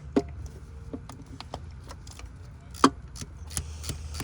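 Hand ratchet clicking in short runs as it turns a spark plug socket, with two louder metal knocks and a steady low hum underneath.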